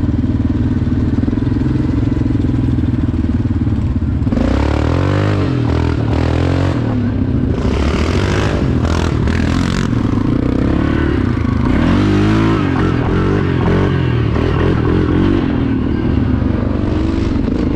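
ATV engine running steadily; about four seconds in, the sound changes abruptly to the engine revving up and falling back again and again over a rushing noise as the quad is ridden.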